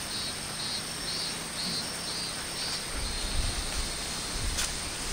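Insects chirping: short, pulsing chirps repeated about twice a second over a steady high-pitched hum. About three seconds in, a low rumble comes in, and a sharp tap sounds near the end.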